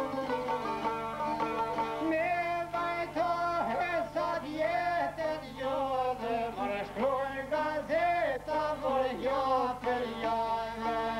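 Two long-necked plucked lutes playing an Albanian folk tune, with a man's voice singing over them from about two seconds in, in long, bending phrases.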